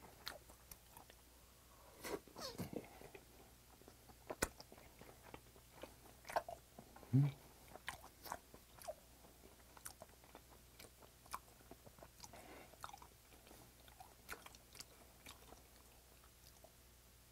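Close-miked chewing of raw swordtip squid (hanchi) sashimi: faint, scattered wet clicks and smacks of a mouth working the rubbery flesh, with a short hum about seven seconds in.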